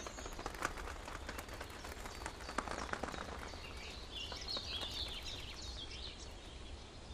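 Outdoor nature ambience with small birds chirping in short bursts near the start and again in the middle, over faint scattered clicks and a steady low rumble.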